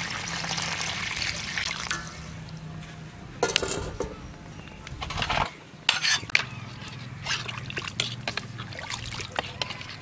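Water poured into a metal cooking pot of chicken and broth, splashing for about the first two seconds, then a few sharp knocks of the pot or a utensil.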